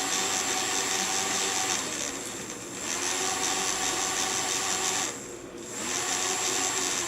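Small fischertechnik electric motor whirring with a high whine as it drives the monorail carriage along the rail, in three spells of about two seconds that each drop away before it picks up again.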